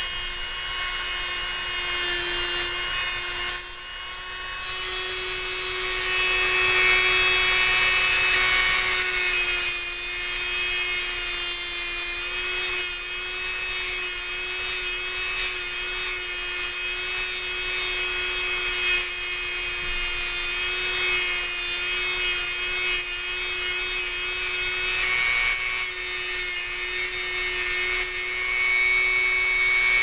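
Dremel rotary tool running at high speed and cutting into steel drain-snake wire: a steady high motor whine with a rasping grind that swells as the bit bites, loudest about a quarter of the way in and again near the end.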